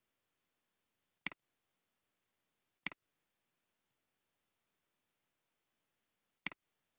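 Three sharp computer mouse clicks, about a second in, near three seconds and near the end, over near silence.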